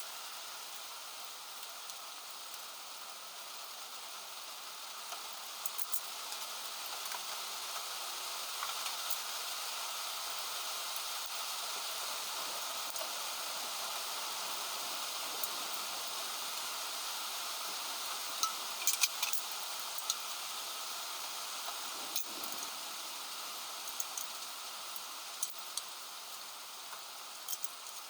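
Heavy rain falling steadily, a constant hiss, with a few sharp clicks now and then, several close together a little past the middle.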